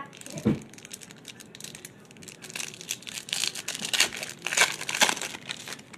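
Foil wrapper of a Topps Chrome or Bowman Chrome baseball card pack being torn open and crinkled by gloved hands. It is a crackling rustle that grows louder around the middle.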